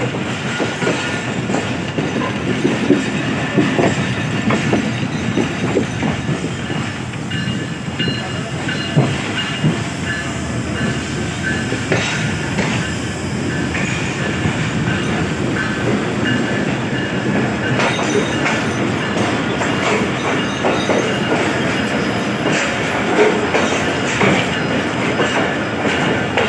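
Passenger train coaches rolling over the rails, wheels clacking irregularly over rail joints and points, with a faint thin squeal of wheels on rail now and then.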